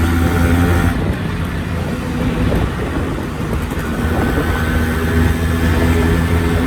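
Yamaha RX two-stroke single-cylinder motorcycle engine running with a steady beat. About a second in it eases off and goes rougher, then picks up again to a steady run around four seconds in.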